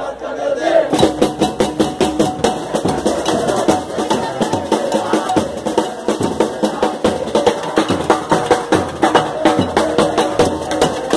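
Carnival street band (bloco) playing: drums beat a quick, steady rhythm under a sustained melody, with voices from the crowd mixed in.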